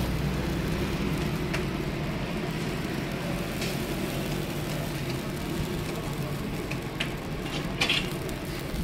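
A steady low hum with faint sizzling from a hot street-stall griddle, with a few sharp clicks of metal tongs against the griddle, the loudest near the end.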